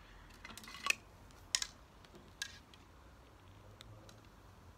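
Archery arrow being picked up and fitted to a fiberglass bow: a short rustle, then a few light clicks and taps as the shaft and nock knock against the bow and string.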